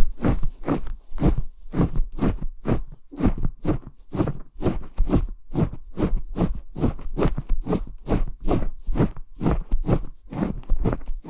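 Brush rubbing back and forth close to the microphone in steady, even strokes, about three a second. This is an ASMR hair-washing or small-broom trigger.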